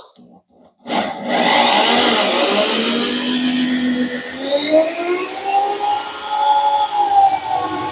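Corded electric drill running under load, boring a pilot hole through the metal floor of a pickup truck bed. It starts about a second in, and the motor's whine rises and falls as the bit bites.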